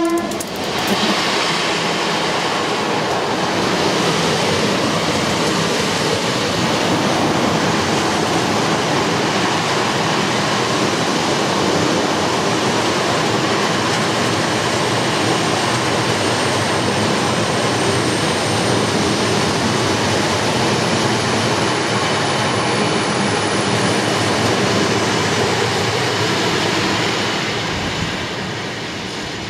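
Class 59 diesel locomotive passing close by, its two-stroke V16 engine heard at the start, then a long train of box wagons rolling past with steady wheel-on-rail noise. The sound fades near the end as the train draws away.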